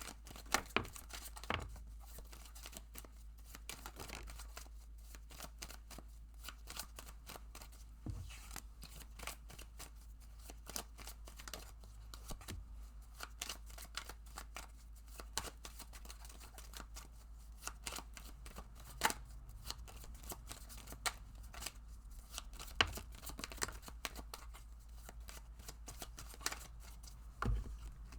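Tarot cards being shuffled by hand: a dense, irregular run of soft snaps and papery clicks, over a low steady hum.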